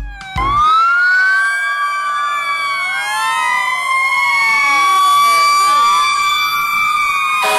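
Several fire engine sirens wailing at once, their pitches rising and falling and crossing over one another.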